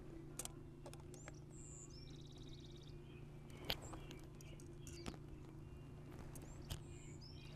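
Faint clicks and ticks of needle-nose pliers working a copper ground wire around a lamp holder's grounding screw, over a low steady hum. A bird chirps in the background about one and a half seconds in and again near the end.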